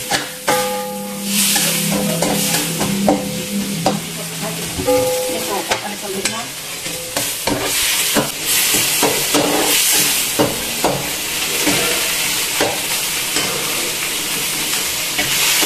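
Prawns sizzling in hot oil in a wok, with a spatula stirring and scraping against the pan in many short knocks. The sizzle gets louder about halfway through.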